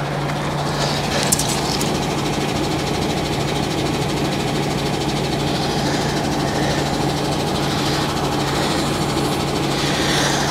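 A heavy vehicle's diesel engine idling steadily with an even low hum, and a couple of light clicks about a second in.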